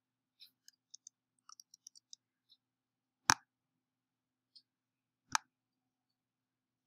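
Computer mouse clicks: a scattering of faint light clicks, then two sharp, louder clicks about two seconds apart.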